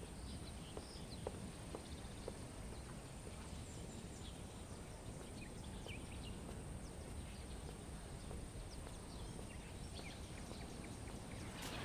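Faint outdoor ambience: a low, steady hiss with scattered faint ticks and small high chirps.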